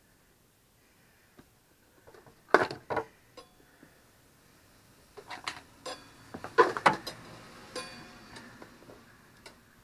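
Tools knocking and scraping against a dirt-bike wheel rim as the tyre is worked onto it. There are two sharp knocks about two and a half seconds in, then a cluster of clanks with brief metallic ringing from about five to eight seconds in.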